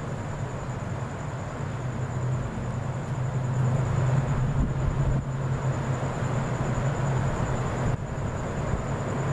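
A steady low rumble that swells a little in the middle, with a thin, steady high-pitched tone over it.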